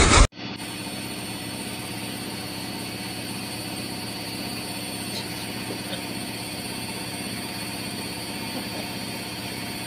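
Washing machine running: a steady mechanical hum with several steady tones, cutting off abruptly at the end.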